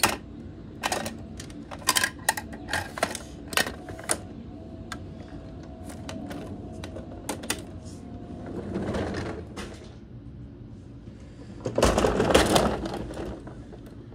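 Plastic clicks and clacks of a toy garbage truck's lifting arm and small plastic toy wheelie bins being handled and set down on wooden deck boards. Later come two longer noisy swells, the second one louder, about nine and twelve seconds in.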